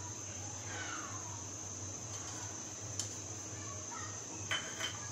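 A metal spoon stirring soup in a stainless steel pot, clinking against the pot three times: once about three seconds in and twice close together near the end, the last two with a brief ringing tone. Under it a steady high-pitched whine and a low hum.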